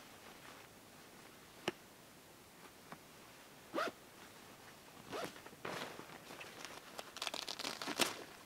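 Zipper on a tipi tent's door being pulled in several short strokes, with rustling of the tent fabric; a sharp click comes about two seconds in, and the busiest, loudest zipping comes near the end.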